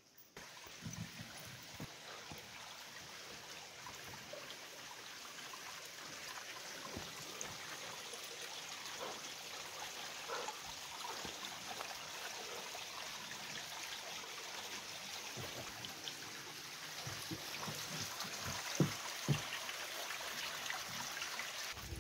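A small forest stream trickling and running steadily, growing gradually louder. A couple of short sharp knocks come near the end.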